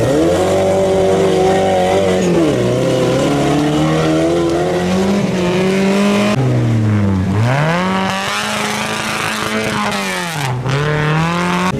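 Off-road 4x4 engines revving hard, the pitch rising and falling again and again as they accelerate and ease off. The sound breaks off suddenly about six seconds in and again near the end, then carries on.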